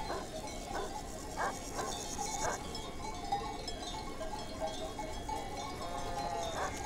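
A flock of sheep bleating, with a few short barks from the livestock guard dogs.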